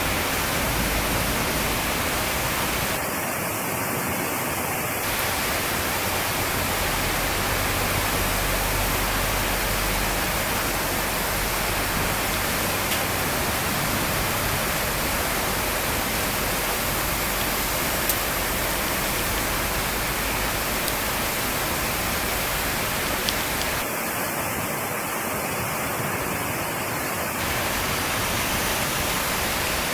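Steady rain falling, a dense even hiss, with a couple of faint single taps of drops.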